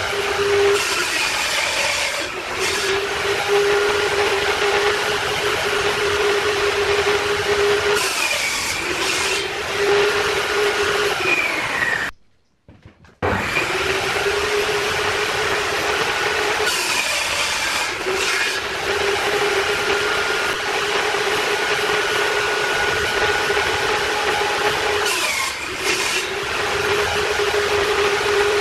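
Table saw running with a steady whine while its blade cuts through wooden board several times; each cut adds a loud hissing rasp and the whine falters as the blade goes through. The sound drops out completely for about a second roughly twelve seconds in.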